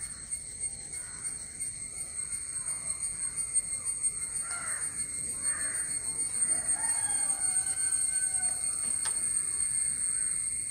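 Birds calling in the background: a few short cries in the middle stretch, over a steady high-pitched whine.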